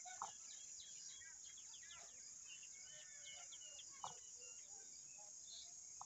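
Faint bird calls: scattered short chirps, with two sharper calls about a quarter-second and four seconds in. Underneath is a steady high insect drone, like crickets.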